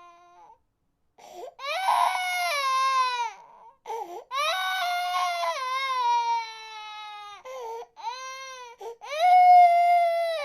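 An infant crying in long wails, each sliding down in pitch, with short sobs between them. The loudest wail starts near the end.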